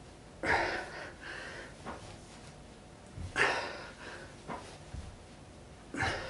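Heavy breathing of a man doing sit-ups with a medicine ball: three loud, sudden breaths about three seconds apart, one with each rep, with fainter breaths between them.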